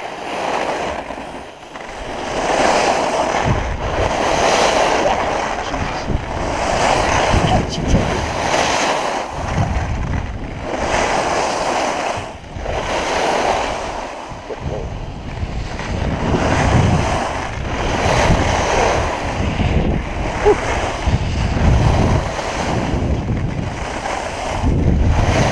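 Skis scraping and carving over icy, hard-packed snow through a run of turns, the scrape swelling with each turn every second or two, with wind rushing over the camera microphone.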